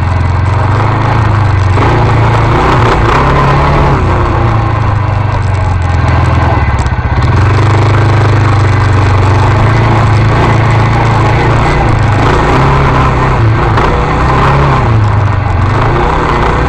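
Arctic Cat 250 ATV engine running under way on a trail ride, its engine note rising and falling as the throttle changes.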